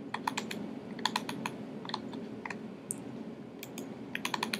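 Light clicks of a computer keyboard being typed on in short runs of a few keystrokes, over a faint steady room hum.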